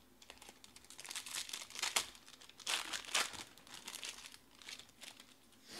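Foil trading-card pack wrapper being torn open and crinkled by hand, an irregular run of crackling with the loudest tearing about two and three seconds in.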